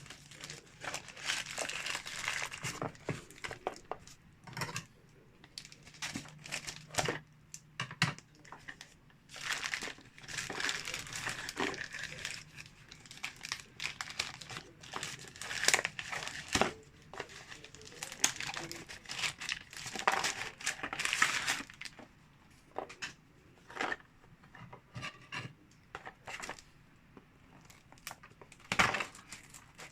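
Crinkling and rustling of packaging being handled, in irregular bursts, with scattered sharp clicks and knocks.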